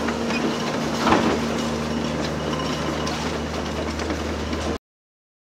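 Diesel engine of a heavy construction machine running steadily, with a single knock about a second in. The sound cuts off abruptly near the end.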